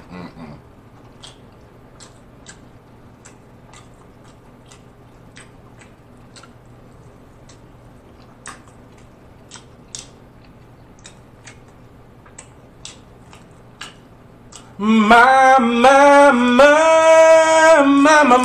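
Faint chewing and wet mouth clicks from a man eating a sandwich. About fifteen seconds in, he breaks into a loud, wordless sung vocalisation, holding several notes that step in pitch, savouring the bite.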